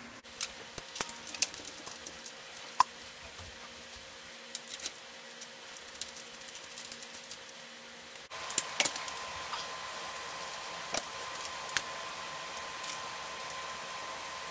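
Light metallic clicks and taps of bicycle parts being fitted by hand, with a rear derailleur and a seatpost and saddle going onto the frame. The clicks are scattered and irregular over a faint steady hum, which steps up in level about eight seconds in.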